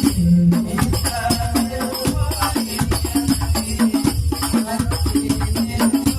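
Sholawat music played loud through a sound system under test: fast, steady percussion with jingling tambourine-like rattles and heavy bass beats.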